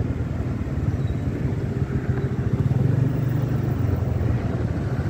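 Motor scooter being ridden along a road: a steady low rumble of engine and rushing air.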